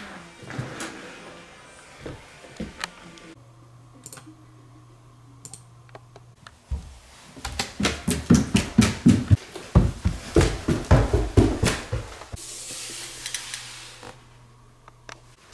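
Footsteps of someone in socks going up wooden stairs: a quick, even run of dull thuds starting about halfway through and lasting about four seconds, over a low steady hum.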